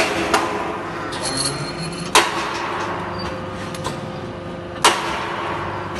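Hydraulic angle-steel punching and cutting machine running: a steady hum with sharp metal clanks, a quick double clank at the start, then single clanks about two seconds and about five seconds in. A brief hiss comes around a second and a half in.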